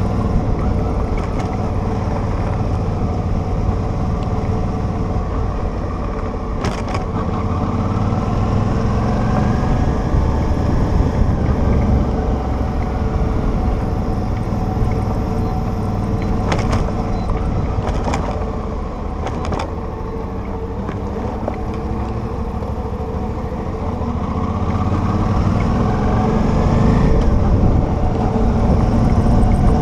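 Motorcycle engine running steadily over a rough gravel road, with low rumble from wind and the road surface. The engine pitch climbs twice, about a third of the way in and again near the end, as the bike accelerates, and a few sharp knocks come from the bumpy surface.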